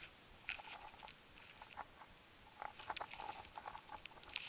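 Faint, scattered crackling and rustling of gloved fingers rubbing dirt off a small dug-up button, with bits of soil crumbling.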